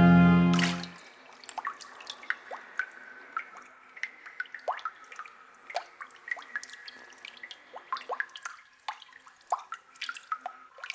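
An organ chord cuts off about a second in. Then water drips irregularly into shallow standing water, a few drops a second, some with a falling plink.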